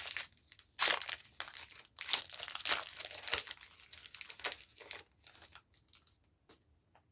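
A Pokémon TCG booster pack's foil wrapper crinkling and tearing as it is opened, in irregular bursts of crackling that thin out and stop near the end.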